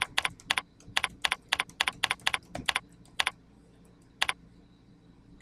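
Typing on a computer keyboard: a quick, uneven run of key clicks for about three seconds, then one more click about a second later.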